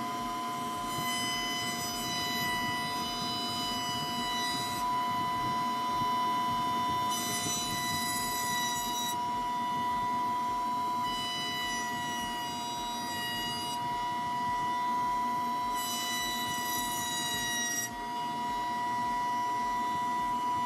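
Electric woodworking power tool running steadily with a high motor whine that wavers slightly in pitch.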